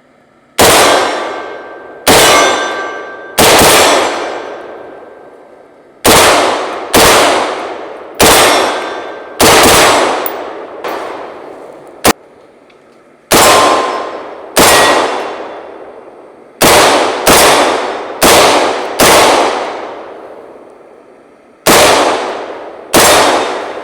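About eighteen shots from an American Tactical Milsport AR-15 in 5.56 fitted with an Ultradyne Apollo Max muzzle brake. They come singly and in quick doubles, each report ringing out for about a second.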